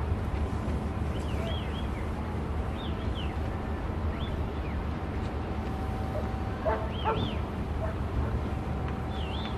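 Steady low rumble with short, high, squeaky animal calls repeating every second or so, and a louder burst of calls about seven seconds in.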